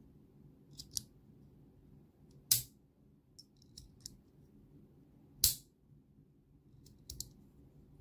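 Bolt action tactical pen in anodized metal being worked by hand: a few light clicks and two sharp, loud clacks about three seconds apart as the bolt is slid and snapped into place, extending the writing tip.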